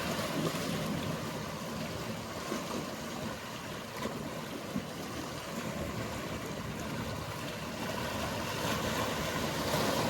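Mediterranean sea ambience: waves washing steadily, with the low hum of boat engines underneath.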